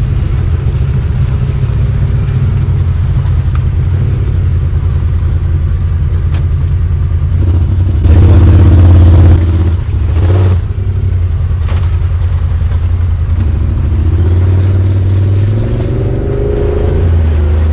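Honda Talon X4 side-by-side's parallel-twin engine running steadily under load on a dirt trail, surging louder about eight seconds in and easing off briefly just after, with a few knocks from the ride.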